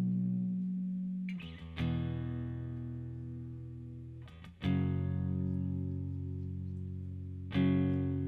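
Guitar playing slow chords: a chord is struck about every three seconds, twice in the middle and once near the end, and each is left to ring out and slowly fade.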